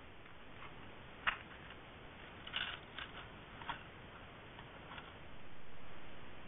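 Steady hiss from a trail camera's microphone with a handful of faint, sharp clicks and rustles from a gray fox moving right beside the camera, the sharpest about a second in, then a swell of hiss near the end.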